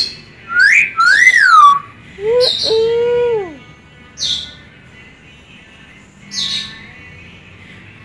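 Common hill myna calling: two loud whistles that rise and fall in pitch, then a lower drawn-out call that drops away at its end, followed by two short, sharp high calls a couple of seconds apart.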